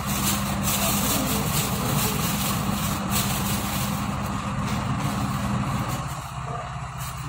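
A machine's steady low hum that drops away about six seconds in, with a few faint clicks.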